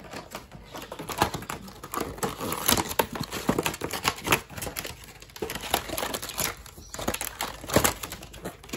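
Stiff clear plastic blister packaging being bent and pried open by hand, crackling and creaking with many irregular sharp clicks.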